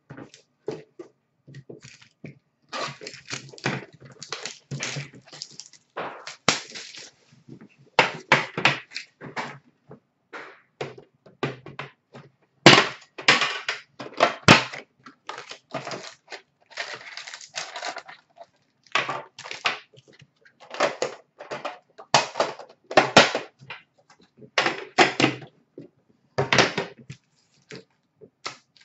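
Hockey card box and packs being opened by hand: packaging torn and crinkled and cards handled, in irregular bursts of rustling, with two sharper snaps about midway.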